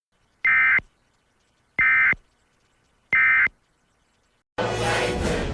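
Three short, high-pitched electronic data bursts of an Emergency Alert System end-of-message (EOM) signal, each about a third of a second long and spaced a little over a second apart. Near the end a loud, dense burst of sound cuts in.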